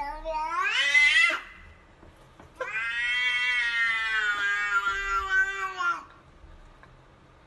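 Domestic cat meowing: one call rising in pitch that ends about a second and a half in, then a long drawn-out meow lasting about three seconds.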